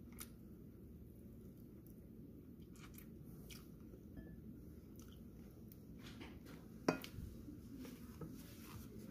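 Quiet chewing and mouth sounds of a person eating a chicken wing, with scattered small clicks and one sharper click about seven seconds in.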